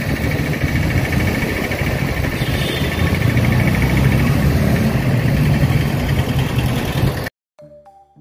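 Riding on a motorised two-wheeler through city traffic: a steady engine hum under loud road and wind noise on the microphone. About seven seconds in it cuts off abruptly, and soft background music with separate notes begins.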